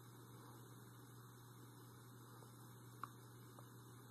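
Near silence: a low, steady electrical hum, with one brief faint tick about three seconds in.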